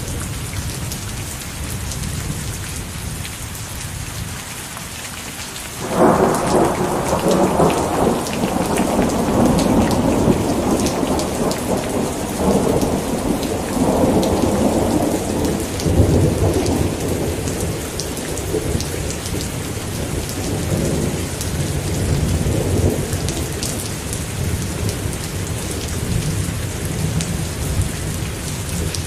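Steady rain pattering, with a clap of thunder about six seconds in that rumbles on and slowly dies away.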